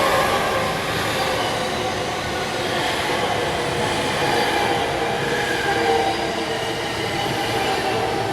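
Recorded train passing: a steady, dense rail rumble laced with wavering, squeal-like tones, heard as a sound-effect layer.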